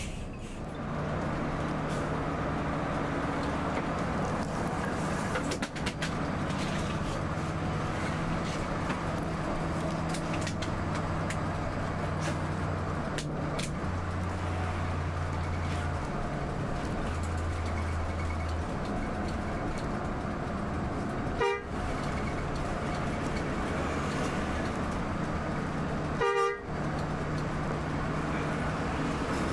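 Inside an intercity coach under way: steady engine drone and road noise in the cabin, with two short horn blasts in the latter part, the second about five seconds after the first.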